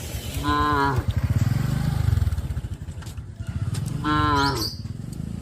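Cattle mooing: two short, higher-pitched calls, one about half a second in and one about four seconds in, with deep, low lowing between them.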